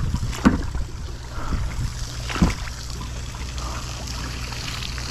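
Kayak paddling: water trickling and dripping off the paddle blades as they dip and lift. Two sharp knocks about two seconds apart, over a steady low hum.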